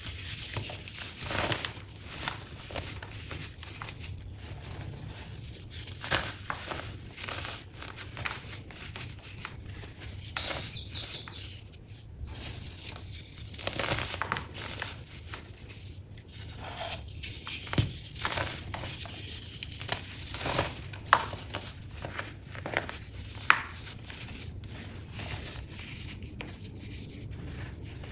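Baking soda being crushed: a run of irregular dry crunches and crackles, with a few sharper, louder snaps near the end.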